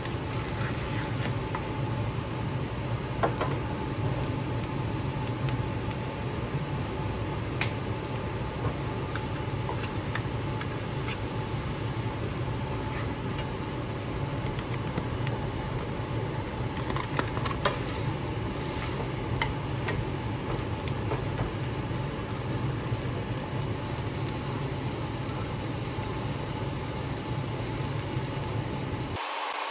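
Kimchi and tuna frying in a pan, a steady sizzle over a low hum, with scattered clicks as a spatula stirs and knocks against the pan.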